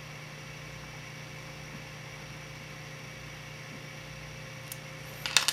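Steady low hum and hiss of background machine noise. Near the end, a short sharp clatter as a small 3D-printed plastic part is set down on a wooden workbench.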